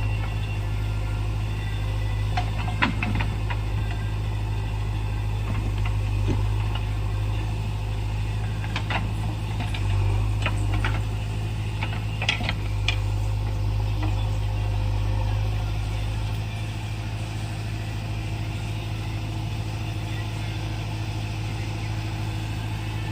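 Diesel engine of a JCB backhoe loader running steadily at low revs, with scattered clicks and knocks. The engine gets slightly quieter about two-thirds of the way through.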